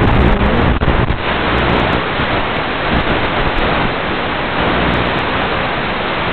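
FPV racing quadcopter's motors whining briefly as it tumbles into a crash, with a knock a little under a second in. After the knock comes a steady, even hiss of static as the video link breaks up.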